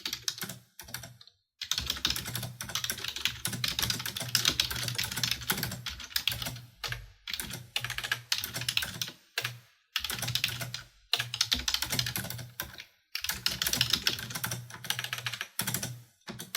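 Typing on a computer keyboard: rapid key clicks in runs of a few seconds, broken by short pauses.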